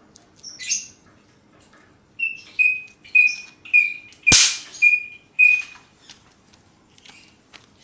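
A bird chirping in a steady series of short, same-pitched calls, about two a second, with one sharp firecracker pop about four seconds in, the loudest sound.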